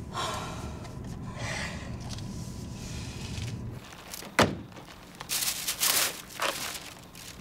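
Low rumble inside a moving car, with a couple of heavy breaths. Then, after about four seconds, a car's trunk lid is shut with a single sharp thunk, followed by rustling of a paper grocery bag.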